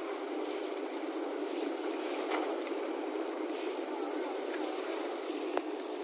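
Steady running drone of fishing boats lying alongside each other, with a sharp knock near the end.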